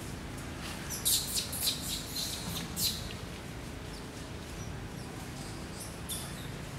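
A bird chirping: a quick run of about six sharp, high chirps between one and three seconds in, then a single chirp near the end, over steady low background noise.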